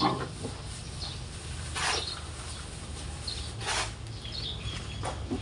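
Shovel scraping into a pile of sand, three scoops about two seconds apart, with small birds chirping.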